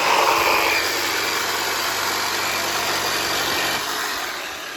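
A motor running steadily with a loud, even noise, easing off near the end.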